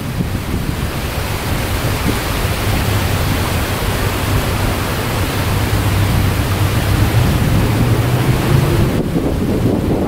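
Strong wind buffeting the microphone: a loud, steady low rumble under a hiss, over wind-driven choppy water.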